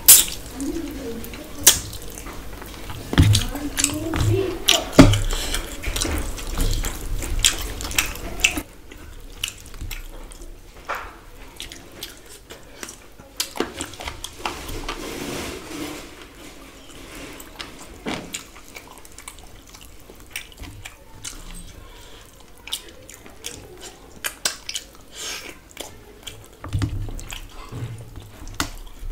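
Close-up eating sounds: wet chewing and lip-smacking, with fingers squelching and picking through fish curry. It is busier and louder for the first nine seconds or so, then settles into scattered wet clicks.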